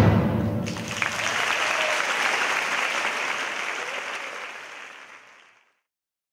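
A crowd applauding as the final chord of choir music dies away; the clapping fades out about five and a half seconds in.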